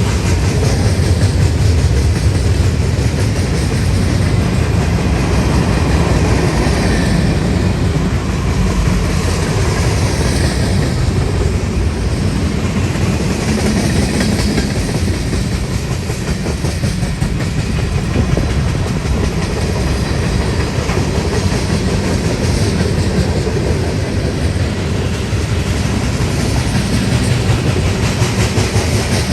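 Freight train cars rolling past at a steady pace, a continuous rumble with the clickety-clack of wheels over the rails.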